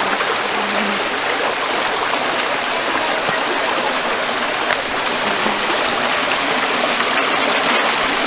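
A rocky river flowing steadily: a continuous rush of water over stones, with a few faint clicks near the end.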